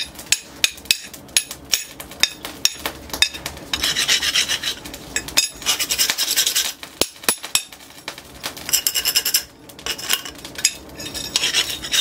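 A flat steel scraper worked by hand in repeated strokes across a steel machete blank on a post anvil. The metal-on-metal rasping is broken by many sharp clicks as the tool catches and knocks the blade, and there are two longer stretches of steady rasping in the middle.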